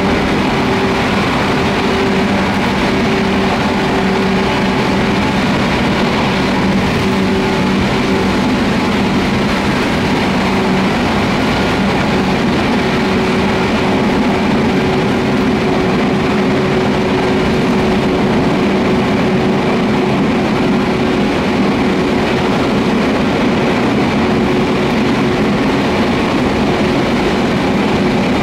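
Cabin running noise inside the motor car of a 413-series electric multiple unit cruising at a steady speed: an even rumble of wheels on rail with a steady traction-motor hum. Outside is a tunnel, which makes the rumble even and enclosed.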